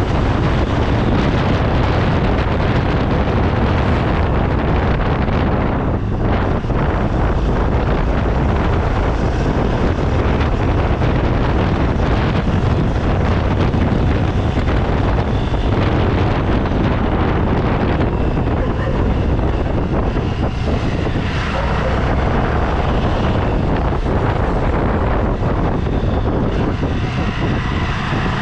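Steady vehicle running noise, with wind buffeting the microphone.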